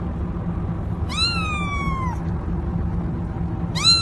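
A cat meowing twice: high meows that rise slightly and then slide down in pitch. The first lasts about a second; the second starts near the end. Both sit over a steady low hum.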